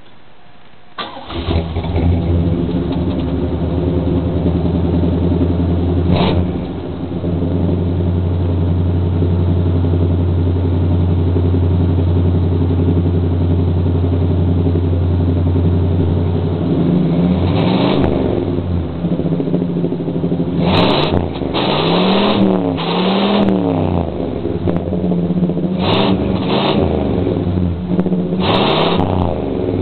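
A car engine breathing through a Flowmaster muffler starts about a second in and settles into a steady idle. From about halfway on it is blipped several times, each rev rising and dropping back quickly, with a double rev around three-quarters through.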